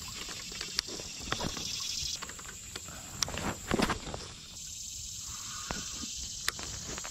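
Steady high hiss of insects in summer foliage, with scattered clicks and knocks from casting and handling a fishing rod and spinning reel. The loudest is a short clatter about four seconds in.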